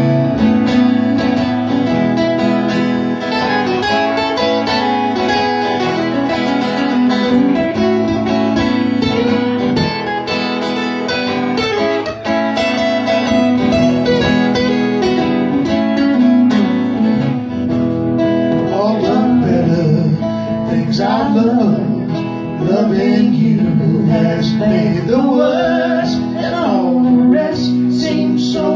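Two acoustic guitars played live in a slow song, strummed chords with picked melody lines over them.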